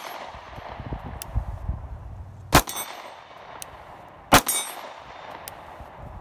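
Two pistol shots from a Sig P365 9mm, about two seconds apart, each with a short ringing tail. A faint click follows about a second after each shot.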